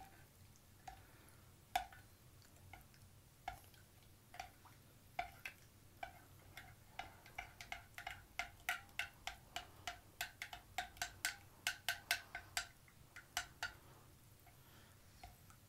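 Metal teaspoon clinking against the inside of a glass as salt is stirred into water. The clinks come singly and sparse at first, then in a quicker run through the middle, and stop a couple of seconds before the end.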